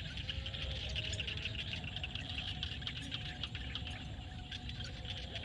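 Chorus of frogs and insects calling in a field: dense, continuous rapid chirping over a low steady rumble.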